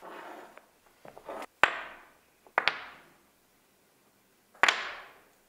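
Small hardwood blocks set down one by one onto the bench and knocked into place against the rest of the layout. Each gives a sharp wooden clack with a short echo: about five in all, two close together in the middle and a loud one near the end.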